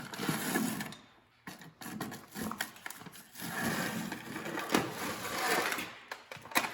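Irregular scraping, rustling and clanking from handling at a heat-treat furnace as a red-hot piece of A2 tool steel is taken out to air cool, with brief lulls about a second in and near the end.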